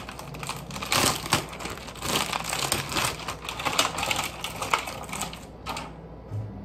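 Rapid crinkling, crackling and clicking of packaging and small items being handled on a kitchen counter, stopping about six seconds in.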